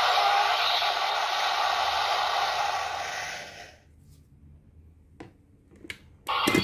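Bandai DX Zero-Two Driver toy belt's speaker playing a long, loud, noisy whoosh sound effect that fades out after about three and a half seconds. Then come a couple of faint handling clicks and a short loud burst near the end.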